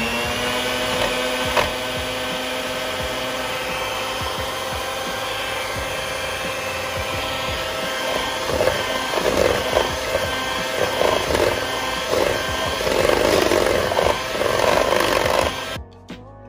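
Electric hand mixer running steadily at speed, its beaters whipping wet muffin batter in a stainless steel bowl. From about halfway there is irregular louder scraping in the bowl, and the motor cuts off suddenly near the end.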